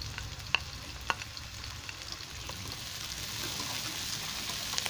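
Tomato slices, garlic and onion sizzling in hot oil in a nonstick wok while being stirred with a plastic spatula. Two sharp clicks of the spatula against the pan come in the first second or so, and the sizzle grows brighter about three seconds in.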